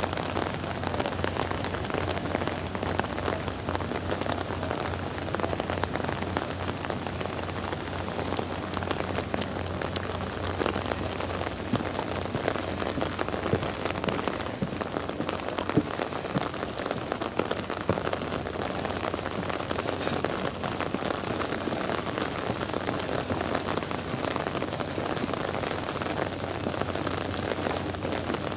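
Steady rain falling, with many separate close drops ticking throughout.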